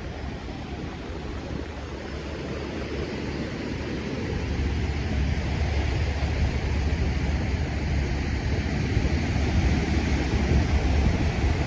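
Wind buffeting the phone's microphone in a deep, fluttering rumble that grows stronger partway through, over a steady rush of sea surf on the beach.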